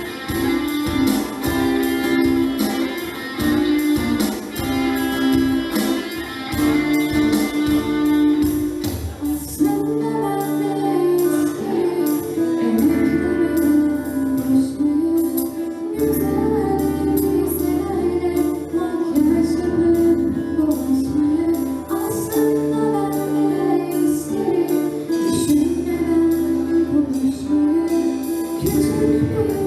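A student band plays a song with strummed guitars, bass and a steady percussion beat. From about ten seconds in, a sung melody carries over the accompaniment.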